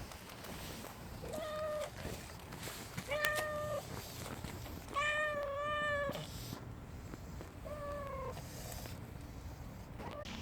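Calico stray cat meowing four times, a couple of seconds apart: short, level-pitched meows, the third the longest and loudest.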